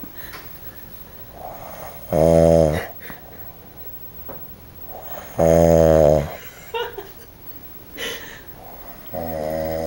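A man snoring loudly: three long, rattling snores about three and a half seconds apart, with quieter breathing between them.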